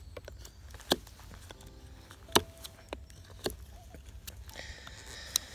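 Fixed-blade knife cutting small chips off the top end of a wooden stake. About five sharp cracks of wood come roughly a second apart, the loudest about two and a half seconds in.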